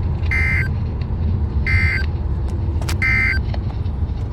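Emergency Alert System end-of-message signal from a NOAA Weather Radio: three short bursts of digital data tones about 1.4 s apart, closing the severe thunderstorm warning broadcast. A steady low rumble of road noise runs underneath.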